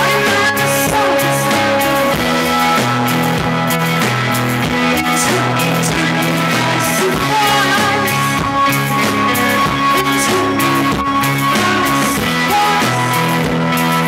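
Rock band playing: electric guitar with held notes over a bass line that moves in steady steps, with drums.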